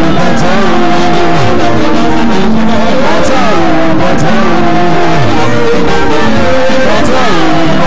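Loud, heavily compressed music with sliding, bending notes repeating in phrases.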